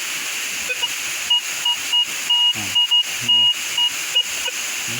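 Metal detector giving a rapid, irregular run of short beeps, mostly at one pitch with a few lower tones and one longer beep near the middle, over the steady rush of a small waterfall and stream. The many signals mean a lot of metal targets in the ground, or a noisy search spot.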